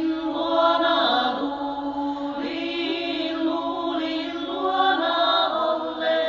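Chant-like vocal music: voices holding long, slowly moving notes over a steady low drone.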